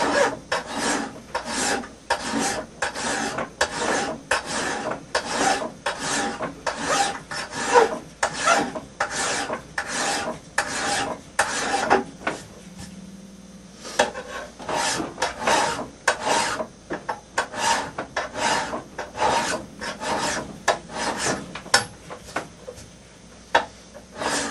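Hand file rasping across the steel bevel of a hand axe head in steady sharpening strokes, about two a second, with a short pause about halfway through.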